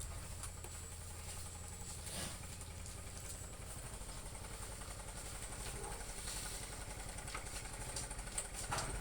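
A steady low engine rumble, like a motorcycle idling, with a few faint clicks.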